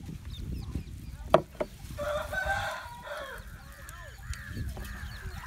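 A rooster crows once, about two seconds in, followed by a run of short repeated calls from other farmyard fowl. Just before the crow a single sharp knock is the loudest sound.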